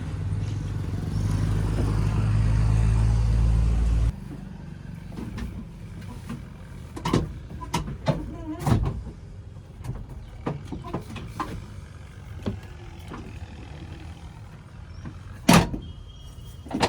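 Diesel engine running loud and steady, then an abrupt cut to a quieter engine drone overlaid with irregular clanks and knocks, with one loud bang near the end.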